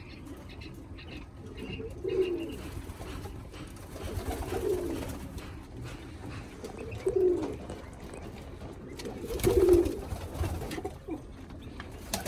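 Domestic pigeons cooing in a loft, low coos repeating about every two and a half seconds. A brief louder noise comes with one coo near the last quarter.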